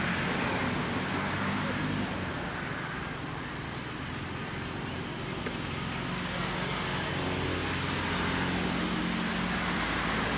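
Steady low engine hum of a motor vehicle running, its pitch drifting slowly, over a constant hiss.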